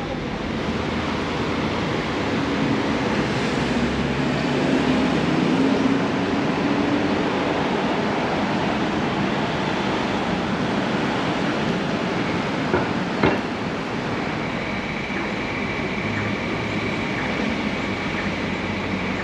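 Steady road traffic noise that swells for a few seconds near the start as a vehicle passes. One sharp click comes about two-thirds of the way through, and a faint steady whine sets in near the end.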